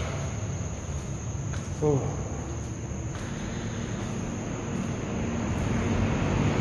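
Insects chirring steadily in a high, even band over a low background rumble. There is one brief pitched squeak just under two seconds in.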